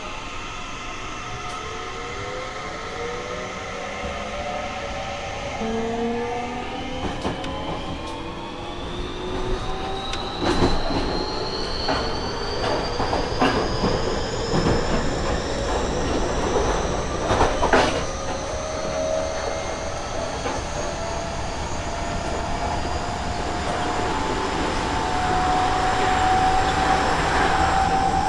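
Seibu 30000 series EMU's Hitachi two-level IGBT VVVF inverter whining as the train accelerates away from a stop, several tones rising steadily in pitch. Midway through, the wheels clack over rail joints a few times.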